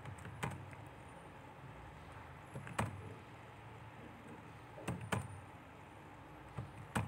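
A handful of separate sharp clicks from computer keyboard keys being pressed as a phone number is entered. They come at uneven intervals, with two close together about five seconds in and a louder one near the end, over a low steady hum.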